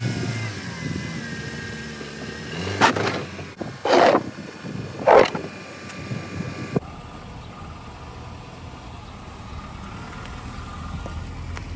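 Car engine running low and steady, with three loud knocks a little over a second apart in the middle. After about seven seconds only a quieter, even hum remains.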